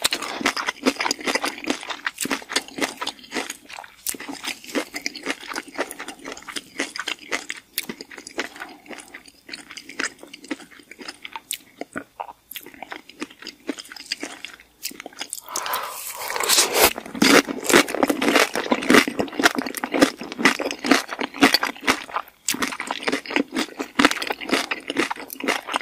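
Biting and chewing crunchy hard-shell tacos, with many sharp crackling crunches of the fried corn shell. The crunching grows louder and denser about two-thirds of the way through.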